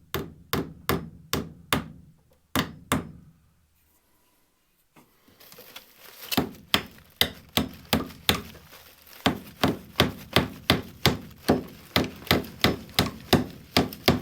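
Hammer blows in quick, even succession, about three a second. They stop for a couple of seconds around the middle, then start again and keep on as a steady run of strikes.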